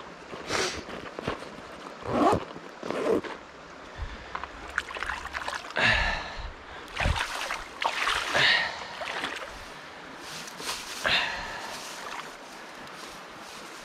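Irregular splashing and sloshing in shallow, muddy water as a landing net holding a chub is handled and bare feet shift at the water's edge. The sound comes in short bursts a second or two apart.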